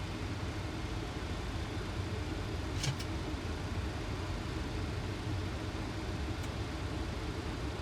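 Steady flight-deck noise of a Boeing 737 on final approach: a continuous rush of airflow over a low engine rumble, with two quick clicks about three seconds in.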